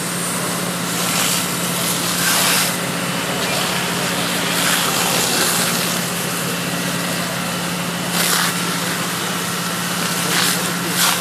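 Firefighting hose jet hissing as water is sprayed at a fire, swelling louder in short surges every few seconds, over a steady low engine drone.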